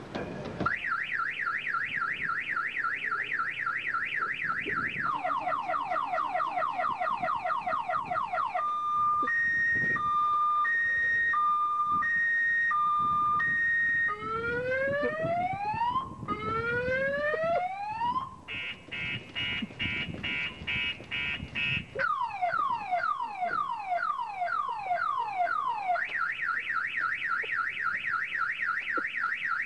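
Car alarm cycling through its sequence of siren tones. It starts with fast high falling chirps, then lower falling chirps, then a two-note high-low alternation about once a second. Next come two long rising whoops, a rapid warble and a run of falling sweeps, before it returns to the fast chirps near the end.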